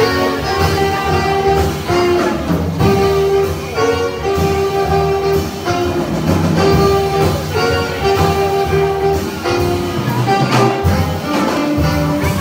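Live small jazz band playing: saxophones and trombone hold chords together over piano, guitar and drums.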